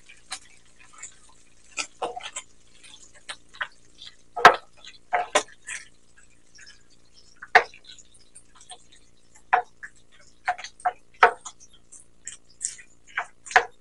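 Cooking spoon scraping and knocking against a nonstick frying pan while stirring boiled chicken gizzards being browned in oil, in irregular clicks and scrapes about one or two a second.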